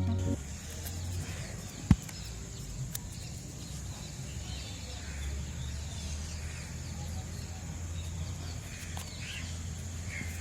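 Outdoor background with faint birds chirping over a steady high hiss and a low hum, broken by one sharp crack about two seconds in and a fainter tick a second later.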